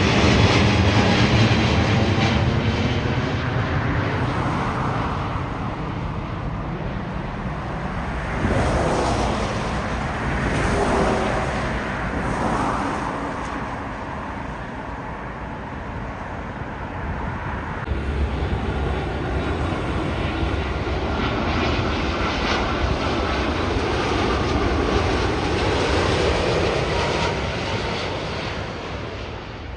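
Jet airliner engine noise as planes pass, loudest at the start and slowly dying away, with further swells of engine noise partway through and near the end.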